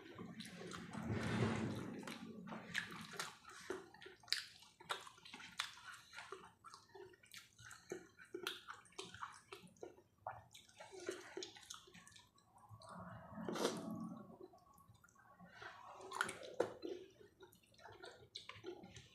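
Close, wet eating sounds of someone chewing a meal of rice, steamed vegetables and sambal: many small clicks and smacks, with two longer, louder swells, one about a second and a half in and one around thirteen seconds.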